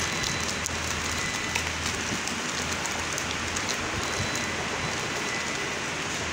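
Clear plastic zip bags of accessories crinkling lightly as they are handled, as faint scattered ticks over a steady hiss and low hum.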